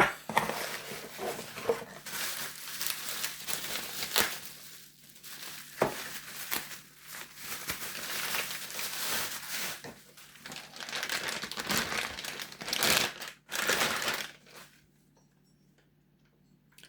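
Plastic packaging crinkling and rustling as it is handled, in fits and starts with a few sharp clicks, stopping about fifteen seconds in.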